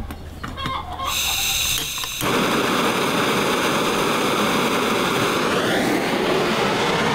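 Handheld butane blow torch on a gas canister: a few light clicks, a short hiss of gas, then the flame catches about two seconds in with a sudden onset and burns with a loud, steady rushing hiss.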